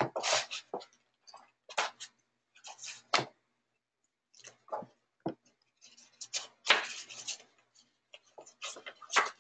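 Sketchbook pages being turned and shuffled by hand: a series of short papery rustles and flaps, with a quiet second or so partway through.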